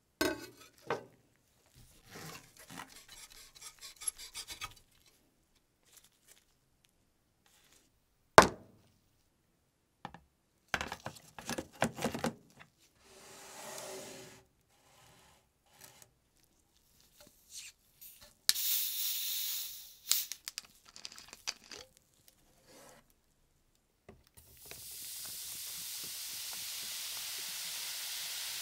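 Handling noises of objects being moved on a tabletop: rubbing and tapping, with one sharp knock about a third of the way in. A plastic bottle of Coca-Cola hisses briefly as it is opened. In the last few seconds the cola is poured into a plastic tub over rusty metal parts and fizzes steadily.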